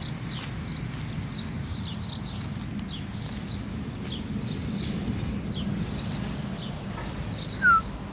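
Small birds chirping in short, high notes that fall in pitch, several each second, over a steady low background rumble. Near the end there is a single short squeak falling in pitch, the loudest sound.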